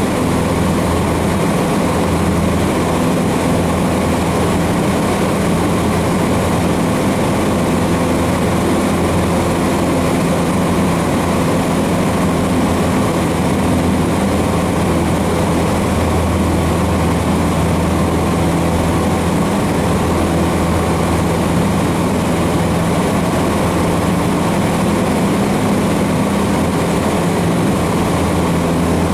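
Cessna 150's Continental O-200 four-cylinder engine and propeller running steadily at full takeoff power, heard from inside the cabin through the takeoff roll and initial climb.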